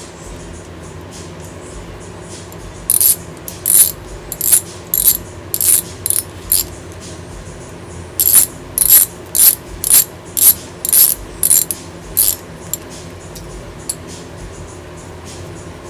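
Ratchet wrench being worked in short strokes, about two clicking strokes a second, in two runs with a brief pause between them, as parts are tightened during carburetor reassembly.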